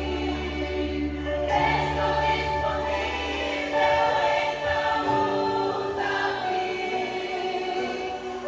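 A choir singing a Christian worship song with an electronic backing: sustained sung notes over a bass line, with the chords changing about every one to two seconds.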